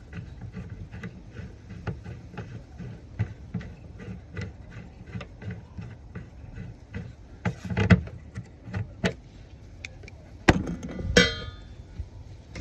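Hand rivnut tool being worked on a rivnut in Unistrut: a run of light metal clicks, about three a second, then several louder metal knocks in the second half, the last one ringing.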